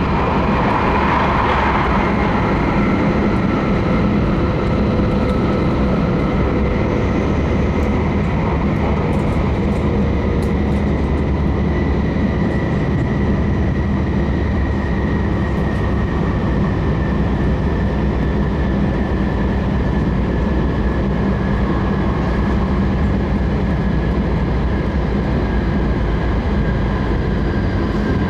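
Tohoku Shinkansen train running, heard from inside the passenger cabin: a steady rumble with a faint motor whine that slowly falls in pitch as the train slows for its station stop.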